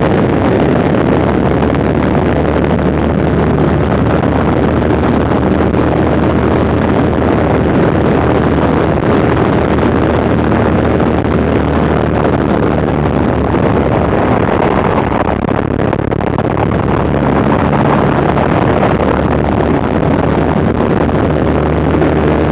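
Fokker Dr.I triplane in flight: its engine runs steadily under heavy wind rush in the open cockpit, heard on an onboard camera microphone.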